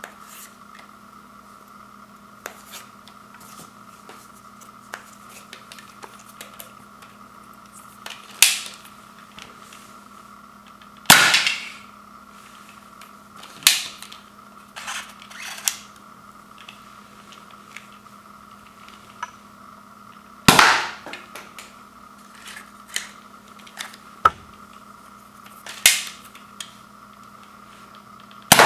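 Zuru X-Shot MK3 spring-powered toy dart blaster firing foam darts: six sharp plastic snaps a few seconds apart, with smaller clicks of handling the blaster between them.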